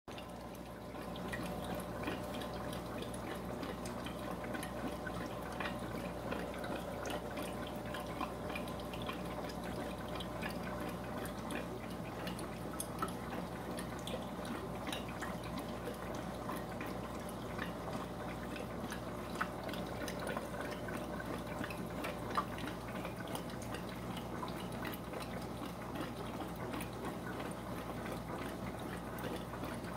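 Steady trickling and dripping of aquarium water, with many small ticks, over a low even hum.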